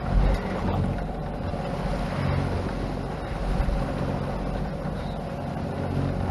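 Steady rushing noise with a low rumble aboard a sailboat under way.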